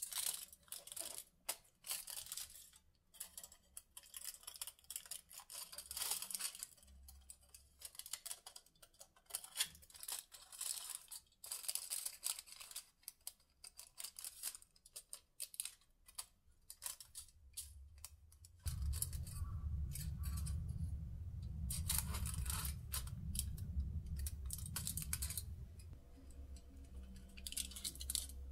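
Aluminium foil crinkling and being snipped with scissors, in many quick crackles and clicks. About two-thirds of the way through, a steady low hum comes in and the foil crinkles more softly.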